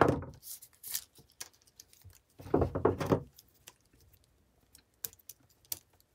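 Handling sounds of a pair of Southwire wire strippers and Romex cable on a wooden workbench. There is a sharp knock at the start and a bright click just under a second in. About two and a half seconds in, a louder rustle lasting about a second comes as the cable is worked, and a few light clicks of the tool follow near the end.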